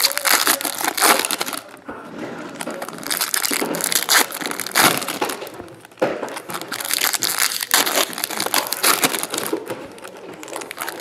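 Foil trading-card pack wrappers crinkling and crumpling as hands open and handle them, in irregular crackly bursts.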